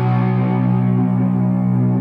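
Custom Stratocaster electric guitar letting a chord ring on after the strumming stops; the notes hold steadily while the upper overtones slowly fade.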